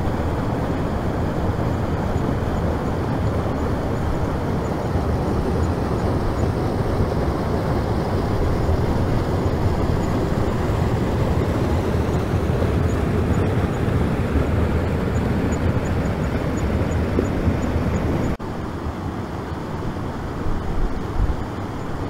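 Steady rush of a fast mountain creek running over rocks. It drops abruptly to a somewhat quieter level about three-quarters of the way through.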